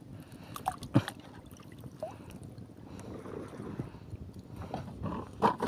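Shallow seawater sloshing and splashing around a person wading and handling a fishing net, with a sharper splash about a second in and another near the end.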